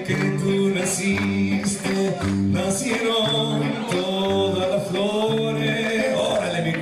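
Music with singing: a sung melody over a bass line that moves in held notes.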